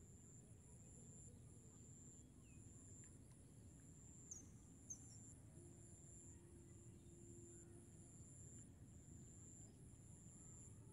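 Faint insects trilling high and steadily in pulses of about a second, with two short high chirps about halfway through.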